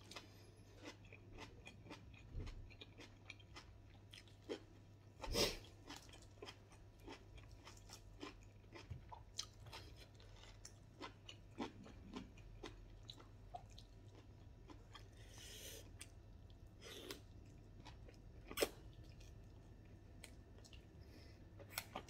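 A person eating cooked bird meat and vegetables by hand: quiet chewing, lip smacks and finger licking, with scattered short clicks and crunches, the loudest about five seconds in and again near the end. A faint steady low hum runs underneath.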